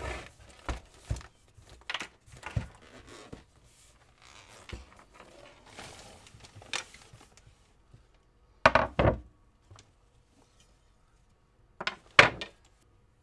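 Handling knocks and scrapes from a hard tubular pool cue case being opened, then several loud clunks as the cue's butt and shaft are set down on a wooden workbench, in two clusters about three seconds apart.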